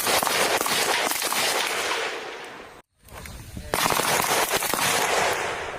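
Rapid small-arms gunfire, many shots in quick succession, in two long stretches broken by a sudden moment of silence about three seconds in.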